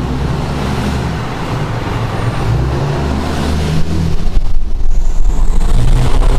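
Cummins inline-six turbodiesel pickup with an aftermarket stack exhaust, running steadily and then going to hard throttle about four seconds in. The exhaust gets much louder and a faint high whine rises above it, all in a tunnel that the exhaust is meant to be heard in.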